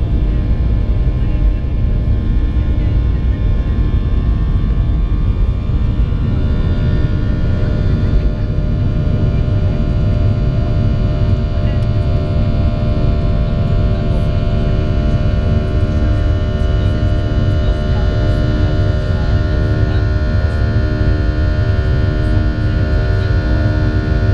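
Boeing 737-700's CFM56-7B turbofan engines at takeoff thrust, heard from inside the cabin over the wing: a loud, steady rumble with a layered drone of engine tones, which stand out more in the second half, through the takeoff roll, rotation and initial climb.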